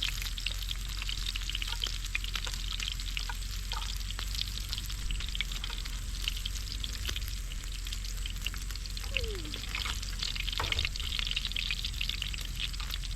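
Egg frying in hot oil in a pan: a steady sizzle with dense fine crackling.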